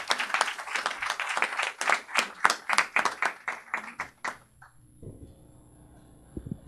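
Audience applauding with many hands, the clapping thinning out and stopping about four seconds in. A short low thump comes near the end.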